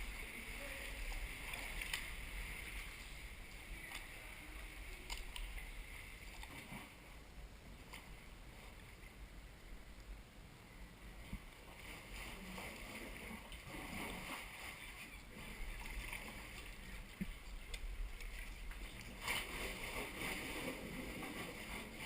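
Sea kayak on the water: paddle strokes and water splashing and gurgling against the hull, swelling louder a couple of times, with a low rumble underneath.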